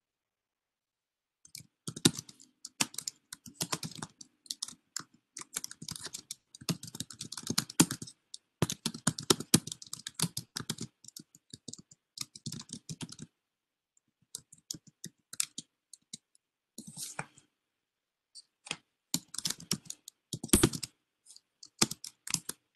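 Typing on a computer keyboard: quick runs of keystrokes starting about a second and a half in, in bursts broken by short pauses.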